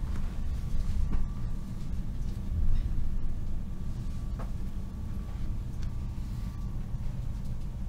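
Cabin running noise of a Stadler KISS double-deck electric train in motion: a steady low rumble with a faint steady high whine, and a few light clicks.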